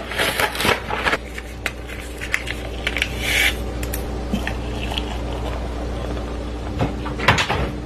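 Cardboard packaging rustling and a coffee packet being handled, with instant coffee tipped into a glass. Then hot water is poured from a stainless steel electric kettle into the glass tumbler in a steady stream for a couple of seconds, followed by a few knocks as things are set down on the stone counter near the end.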